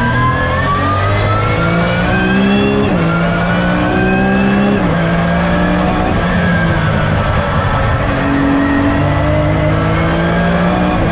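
BMW E36 M3 straight-six race engine pulling hard under full throttle, rising in pitch over the first few seconds, with quick upshifts through its sequential gearbox. It is heard from inside the cabin.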